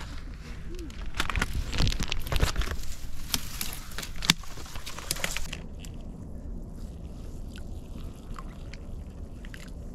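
Crunching and crackling of handling and movement on a wet clay bank, busiest in the first half, then faint scrapes and clicks as wet clay is scooped by hand into a plastic zip bag.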